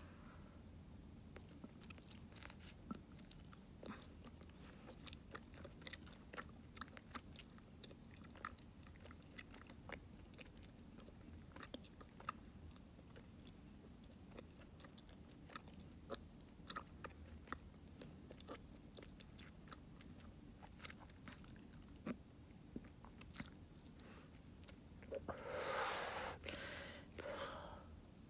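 Bubble gum being chewed close to the microphone: a string of wet, sharp smacks and clicks. About 25 seconds in comes a louder breathy rush of air as a bubble is blown out.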